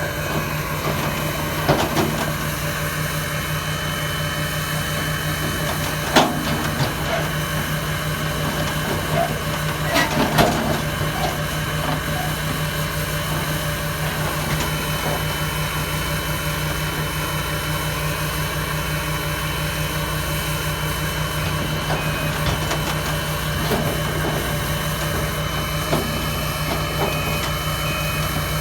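A vehicle engine idling steadily, with a few sharp clanks about two, six and ten seconds in.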